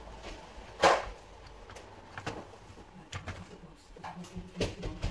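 Plastic clicks and knocks from the floor-nozzle housing of an AEG CX7 stick vacuum as it is handled and fitted together, with one sharp click about a second in the loudest and a few lighter knocks after it.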